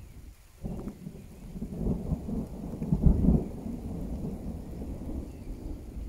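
Thunder rumbling: a deep rumble sets in about half a second in, swells to its loudest about three seconds in, then rolls on more quietly.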